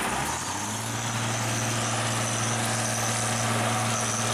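Police water-cannon truck engine running: a steady low hum that sets in under a second in and holds, over a dense street noise.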